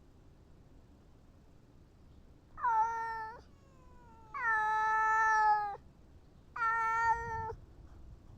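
Domestic cat meowing three times, the middle meow the longest at about a second and a half.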